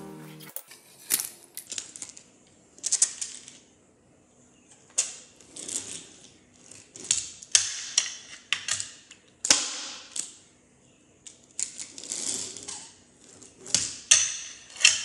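Fingerboard clacking on a hard countertop and a small metal rail: sharp clacks as the board pops and lands, mixed with short rolling and grinding scrapes, coming irregularly.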